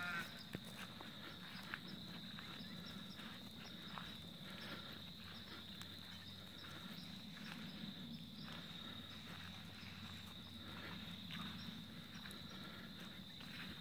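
Steady high chirring of insects, with faint scattered steps on grass and gravel.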